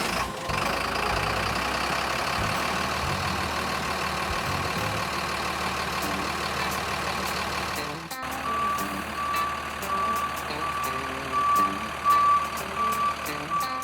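A truck engine running steadily; about eight seconds in, a reversing alarm starts beeping about twice a second over it.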